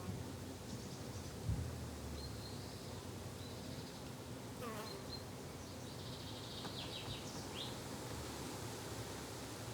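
Summer garden ambience of steadily buzzing insects, bees or flies, with a few short high chirps. There is a brief low thump about one and a half seconds in.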